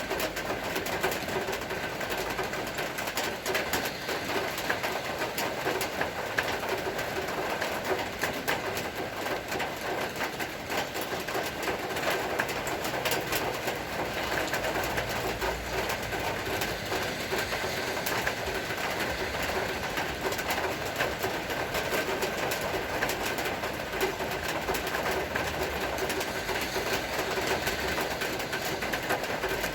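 Steady rain falling, a dense patter of drops, with a faint steady hum underneath.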